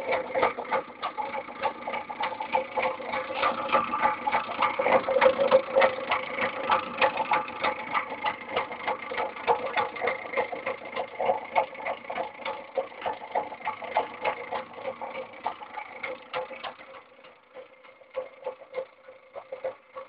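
Homemade reed-switch magnet motor spinning, with a steady whine under a fast stream of clicks. The sound fades down near the end.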